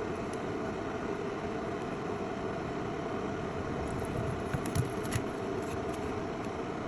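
Steady whir of a fan at a soldering bench, with a few light clicks about four and a half to five seconds in as solder is cleaned from a laptop motherboard's charging-port pads.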